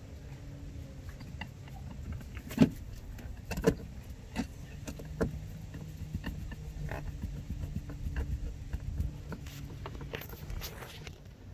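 Hand screwdriver turning screws into the rim of a marine speaker in a pontoon's side panel: scattered sharp clicks and taps of the tool and screw against the speaker's rim, the loudest two about two and a half and three and a half seconds in, over a low steady rumble.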